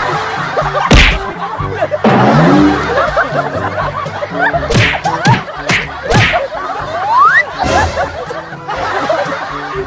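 Comedy sound effects edited over background music: laughter, several sharp hits, a bouncing boing-like sound about two seconds in, and a rising whistle-like glide about seven seconds in.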